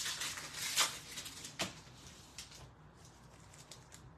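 Foil wrapper of a trading-card pack crinkling and tearing as it is pulled open, in a few loud rustling strokes over the first second or two. After that come fainter rustles and ticks as the cards are slid out.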